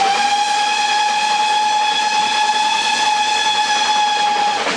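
Steam locomotive whistle sounding one long, steady blast that cuts off near the end.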